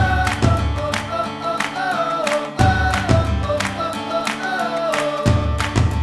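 Background music: guitar and a melody over a steady beat.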